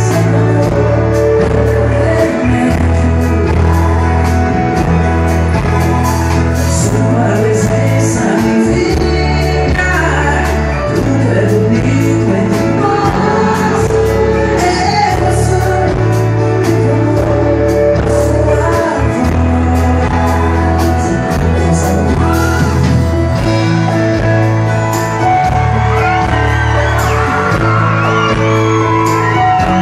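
Live sertanejo band playing through the stage PA: a man singing into a microphone over acoustic guitar, long held bass notes and a steady beat.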